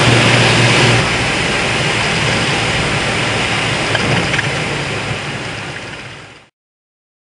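Cabin noise of a Cessna 402's twin piston engines and propellers: a loud steady drone whose low engine hum drops away about a second in. The drone fades out near the end and cuts to silence.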